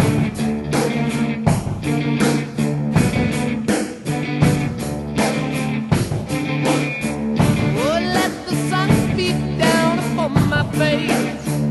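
Rock music with a steady heavy drum beat under a repeating riff, a male voice singing in the second half.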